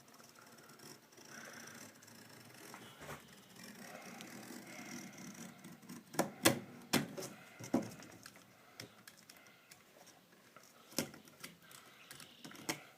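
Utility knife trimming excess window-screen mesh along the rubber spline: faint scratching with a few sharp ticks, bunched about six to eight seconds in and again near the end.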